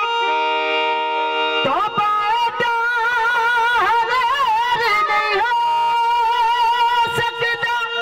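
Live Punjabi devotional folk music played over a loudspeaker system: steady held chords, then from about two seconds in a wavering melody line with heavy vibrato and pitch bends, settling onto a long held note near the end.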